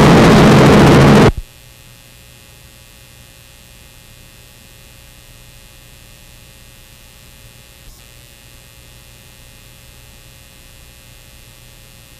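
Offshore powerboat engines running loud at speed, cut off abruptly just over a second in. A faint steady electrical hum follows, with one small click later on.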